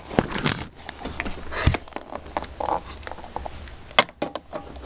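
Scattered light taps, knocks and rustles of small plastic toy figures and camera being handled over a wooden floor, with one sharper knock about four seconds in.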